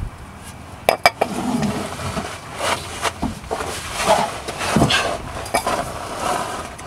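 A series of light metallic clinks and knocks, two sharp ones about a second in, from a metal aerosol can of silicone lubricant being handled around the rusty exhaust pipe and its rubber hangers.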